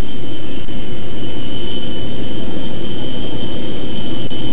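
Jet aircraft turbine noise on the apron: a loud, steady rumble with a constant high-pitched whine over it.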